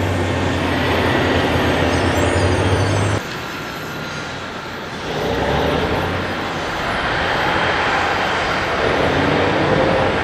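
Heavy diesel mining equipment running: a steady low engine drone, then, after an abrupt change about three seconds in, a louder, noisier machine rumble that rises and falls.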